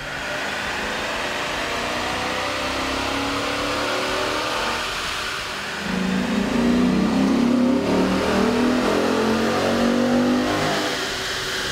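Chrysler 300C's Hemi V8 revving up under load on a chassis dynamometer, in two pulls with the pitch climbing through each. The first pull is with the stock air intake. The second starts about six seconds in with a K&N cold air intake fitted, and it is louder.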